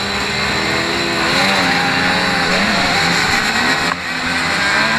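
Several dirt bike engines revving and pulling away together at a motocross race start, the rider's own bike the loudest, its pitch rising and falling as it accelerates.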